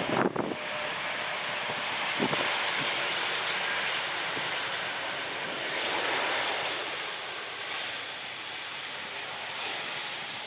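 Jet noise from an Airbus A330-200 rolling out on the runway just after touchdown: a steady rushing that swells to its loudest about six seconds in, then eases off. Wind buffets the microphone a few times near the start.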